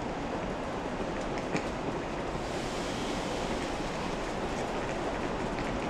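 Steady rumble of a ChS7 electric locomotive hauling a passenger train slowly in toward the platform, with a couple of faint clicks about one and a half to two seconds in.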